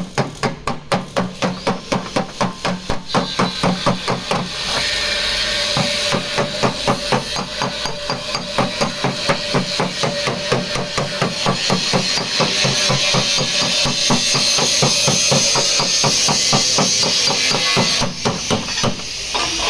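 Rapid, steady hammering on car body sheet metal, about five strikes a second: a panel-beating hammer working a dent out of a rear quarter panel. A steady hiss comes up under the strikes about four seconds in and drops away near the end.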